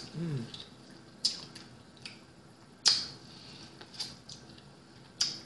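Close-up eating sounds of biting and chewing corn on the cob: a few sharp, separate wet smacks and crunches, the loudest about three seconds in, after a short falling hum at the start.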